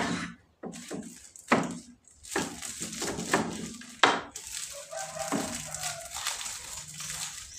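Tempeh packages being handled and unwrapped on a wooden bench: a few sharp knocks as they are set down, then crinkling and rustling of the plastic and leaf wrapping.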